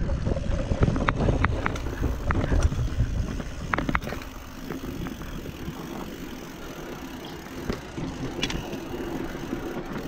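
Mountain bike rolling down a rough dirt trail: tyres rumbling over ruts, with sharp knocks and rattles from the bike. The rumble eases about four seconds in, leaving quieter rolling noise.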